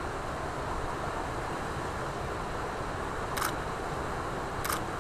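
Steady rushing outdoor background noise, with two short scrapes about three and a half and four and three-quarter seconds in.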